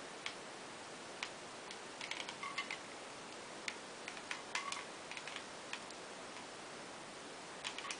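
Faint, scattered clicks and ticks from a Bed Head Wave Artist deep-wave hair crimper being clamped down and moved along a section of hair, some in quick little clusters, over a steady low hiss.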